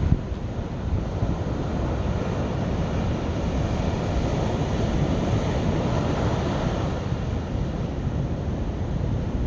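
Sea waves washing onto the beach in a steady surf hiss, with wind buffeting the microphone as low rumbling.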